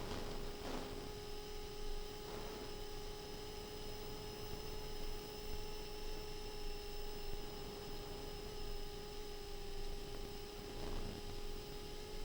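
Steady electrical hum with a few fixed whining tones over a hiss, unchanging throughout: electronic noise in an FPV goggles' DVR recording.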